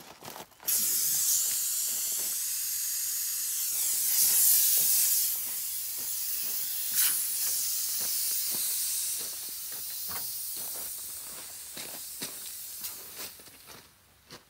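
Compressed air hissing out of a homemade four-tire inflate/deflate hose system after its rear air chuck is pulled off the tire valve. The chuck has no shut-off (blow-by), so air bleeds from the other three tires through the open end. The hiss starts abruptly about a second in and fades over the last few seconds, with footsteps crunching on gravel.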